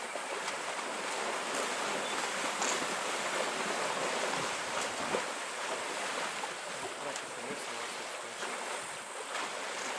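African elephants wading and splashing in a muddy waterhole: a steady wash of water noise with small splashes now and then.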